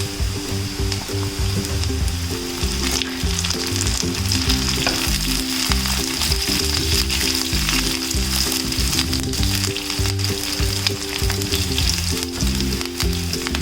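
Chopped shallots and curry leaves frying in hot coconut oil in a pan, a steady sizzle with a spoon stirring and scraping now and then. Background music with held low notes plays underneath.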